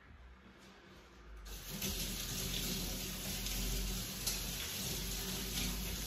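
Water running steadily from a kitchen tap into a sink, turned on about a second and a half in.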